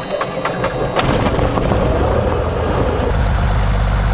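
Single-engine light airplane's piston engine starting: it fires unevenly at first, catches about a second in and runs on, then settles into a steady, deeper idle with the propeller turning near the end.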